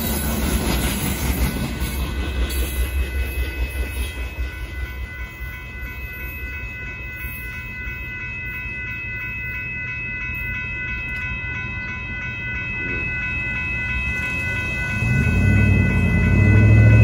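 The last cars of a loaded rock train roll past with a rhythmic clacking of wheels over the rail joints that fades out within the first five seconds, while the crossing's warning bell rings steadily. Near the end a car drives over the crossing close by, and this is the loudest sound.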